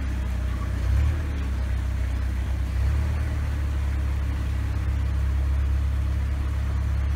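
Motor of a wooden canal tour boat running steadily under way, a low drone that swells briefly about a second in and again near three seconds.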